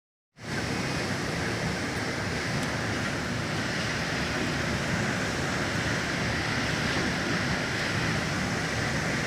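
Heavy rain driven by strong wind: a steady, dense rushing noise that cuts in abruptly at the start and holds level throughout.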